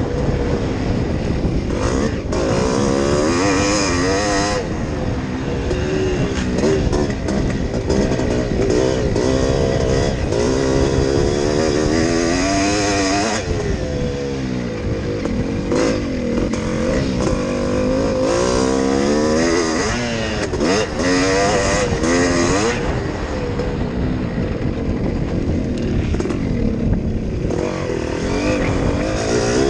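Yamaha YZ465 two-stroke single-cylinder motocross engine at race pace, heard from on the bike: revs repeatedly climbing and dropping back through the gears, easing off for a stretch about three-quarters of the way through.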